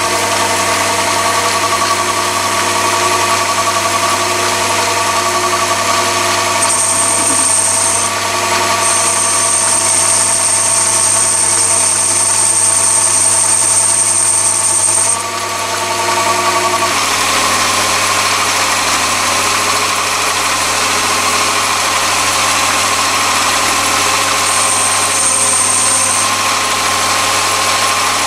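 Chinese mini lathe running steadily, its motor and headstock gears giving a loud whine, while a carbide insert tool takes a cut on a mild-steel workpiece. A thin high-pitched whine comes in for several seconds about a quarter of the way in and again briefly near the end.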